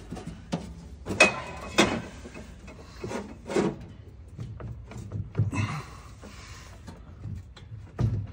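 Advanced Adapters Atlas transfer case being wiggled and pushed onto the transmission's output-shaft splines: several sharp metal-on-metal clunks, the loudest about a second in, then a longer scraping rub as the case slides home.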